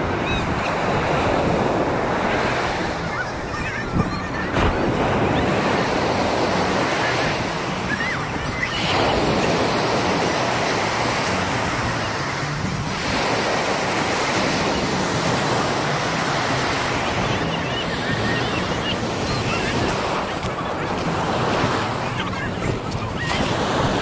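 Ocean surf breaking and washing up the beach, a continuous rush that swells every few seconds, with wind buffeting the microphone.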